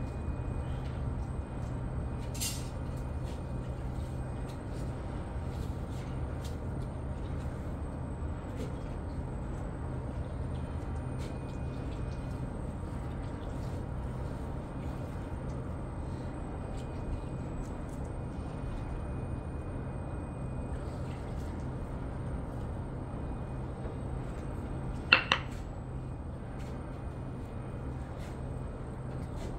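Steady low workshop hum under light scattered clicks and scrapes as moulding sand is packed and smoothed by hand around a wooden casting pattern in a floor mould. About 25 seconds in, two sharp taps come close together: a hand tool striking the pattern.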